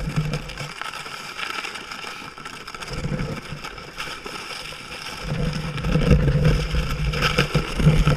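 Sled sliding downhill over snow and ice, a steady rushing scrape with a low rumble that grows louder and rougher from about five seconds in.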